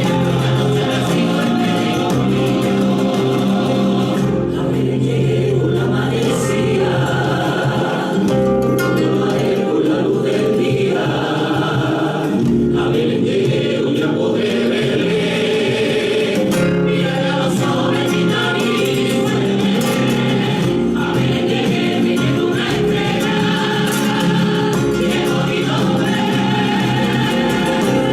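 Music: a choir singing a Christmas carol (villancico).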